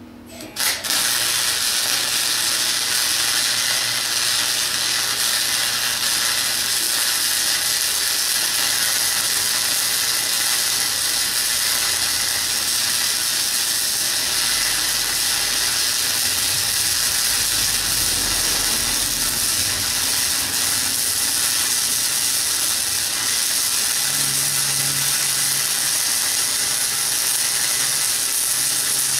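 Campbell Hausfeld 105 wire-feed welder's arc crackling steadily as a continuous weld is run on scrap metal, striking up suddenly about half a second in.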